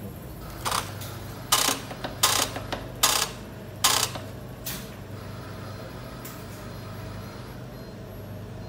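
A steady low hum with six short, sharp clattering noises spread over the first five seconds.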